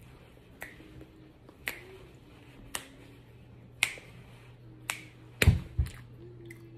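Fingers snapping in a steady rhythm, about once a second, with a louder double knock about five and a half seconds in.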